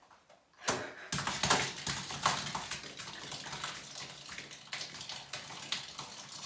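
Thick slime pouring out of a bowl over a person's head and splattering into a bathtub, starting suddenly just under a second in and going on as a dense run of wet splats and drips.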